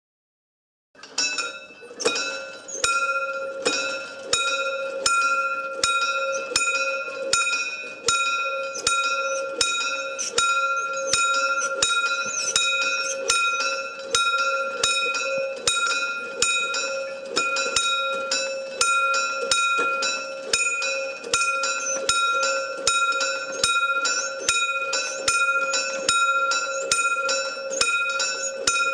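Warning bells of a mechanical level-crossing barrier striking over and over, about one and a half strokes a second, each stroke ringing on, starting about a second in. The ringing is the advance warning that the hand-worked barriers are about to come down.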